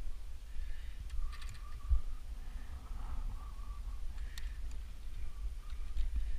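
Wind rumbling on the microphone, with scattered small clicks and scrapes as a wire loop is worked off a weathered wooden gate post and the wooden gate is moved. A few short high squeaks come through.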